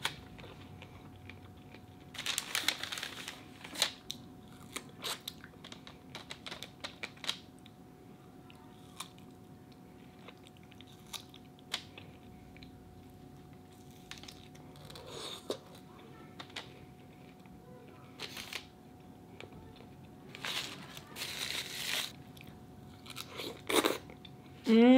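Eating close to the microphone during a seafood-boil mukbang: chewing and crunching, with scattered small clicks and two longer rustling bursts, one about two seconds in and one near the end. A faint steady hum runs underneath.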